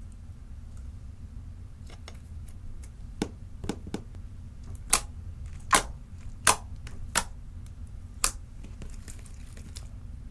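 Clear slime mixed with nail polish being pressed and kneaded by hand, giving about eight sharp wet pops and clicks from trapped air, scattered over the middle of the stretch.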